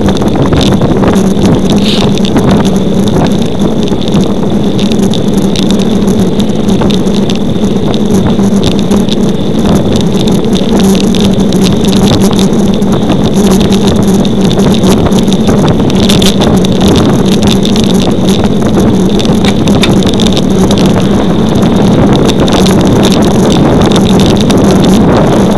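Steady wind rushing over the microphone of a camera mounted on a road bike moving at speed, with tyre noise on the asphalt and many small clicks and rattles from the bike over the road surface.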